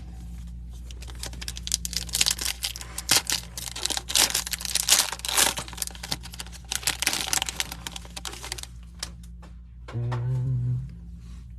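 Foil wrapper of a trading card pack being torn open and crinkled: a dense run of crackles that stops a little before the end.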